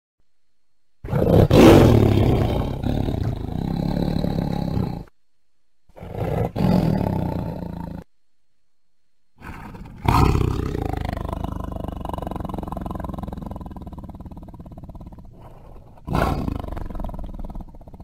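Tiger roaring: four separate roars with silent gaps between them. The third is the longest, fading slowly over several seconds.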